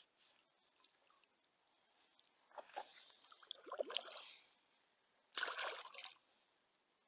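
Water sloshing and splashing in two short bouts, the second a brief, sharper splash a little past halfway.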